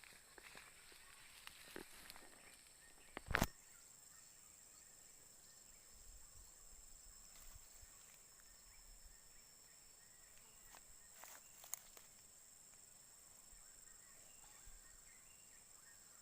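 Faint outdoor ambience with a steady high-pitched whine, and one sharp knock about three and a half seconds in.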